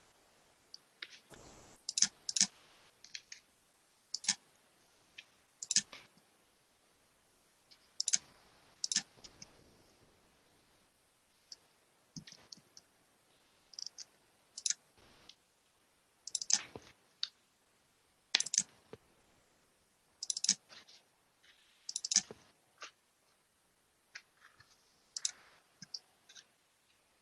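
Computer mouse clicking at irregular intervals, single clicks and quick pairs, as someone navigates through folders on a computer.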